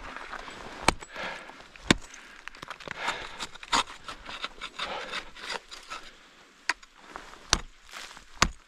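Ice climbing gear (ice axes and crampons) striking and scraping into ice: sharp, irregular knocks about every second or two, with scraping and rasping between them.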